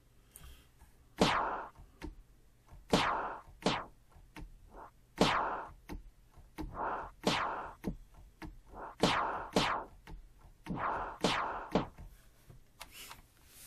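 Drum-sampler noise hit (the Alkaloid kit's 'Noise Alkaloid 6' in Battery 4) played about a dozen times from a keyboard, often in quick pairs; each hit is a sharp noise sweep falling in pitch. A slow LFO on the filter cutoff makes each hit come out a little different.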